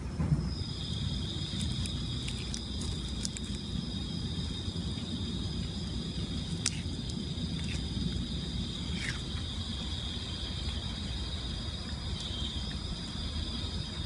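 An insect's continuous high-pitched trill, starting about half a second in and holding steady, over a low rumble, with a few faint clicks.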